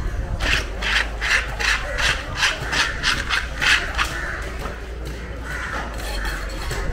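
A blade scraping a hard, wet surface in quick rasping strokes, about three a second, for three to four seconds before stopping.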